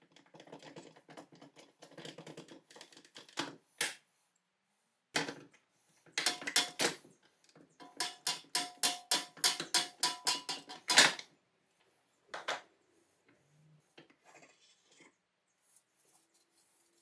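Metal clicking and clinking from pliers working on the cast-iron mechanism of an antique meat chopper being taken apart: first a light rattle, then a quick even run of ringing metallic clicks, about four or five a second, ending in a loud clank about two-thirds of the way in, then a few faint knocks.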